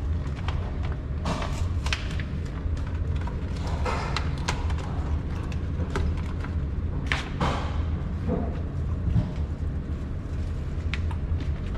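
Irregular sharp thumps and clicks over a steady low rumble, the loudest about seven seconds in, in keeping with muffled gunshots from other lanes of an indoor shooting range.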